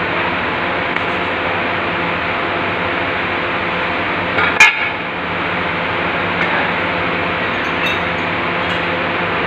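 Steady machine hum over constant background noise, broken once, about halfway through, by a single sharp metallic clink that rings briefly.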